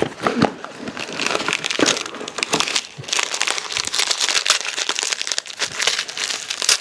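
Packaging crinkling and rustling in the hands as small accessory parts are unwrapped, an irregular run of crackles.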